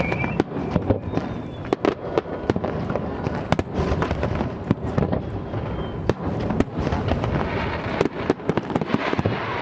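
A dense fireworks barrage: many sharp cracks and bangs in quick succession over a continuous rumble of shell bursts. A falling whistle trails off just as it begins.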